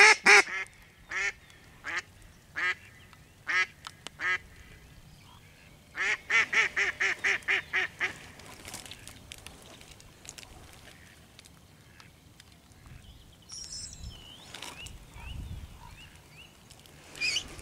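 Live decoy hen duck of mallard type quacking. A few spaced quacks come first, then about six seconds in a quick run of about nine quacks: the hen's calling that draws in drakes. One more quack comes near the end.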